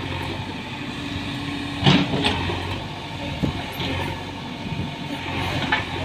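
JCB 3DX backhoe loader's diesel engine running steadily while the backhoe digs soil. Sharp clanks come about two seconds in and again near the end.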